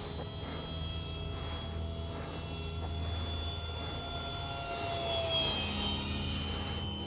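Electric ducted-fan whine of a Phase 3 F-16 radio-controlled model jet flying overhead. It grows louder, then falls in pitch as the jet passes about five seconds in.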